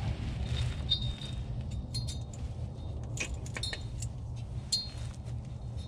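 Metal hose clamps clinking and jingling as they are handled and fitted around a driveshaft: a scattering of light metallic clicks with a brief ring, over a steady low rumble.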